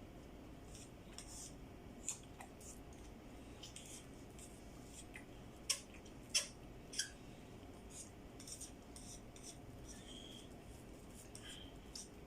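Light clicks and taps of eating: a spoon knocking on a food container, with three sharper clicks a little past the middle.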